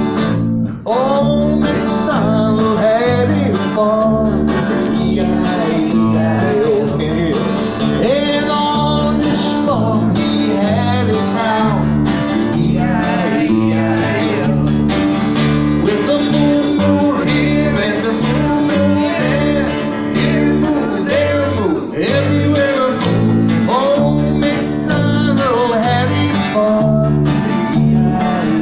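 Live instrumental break on acoustic guitar and a five-string fretless electric bass: steady guitar strumming with a melodic lead line whose notes slide and bend between pitches.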